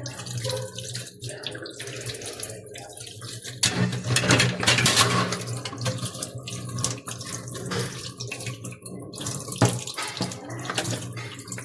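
Water running from a tap and splashing unevenly, as when vacuum-brush parts are washed under it, over a steady low hum.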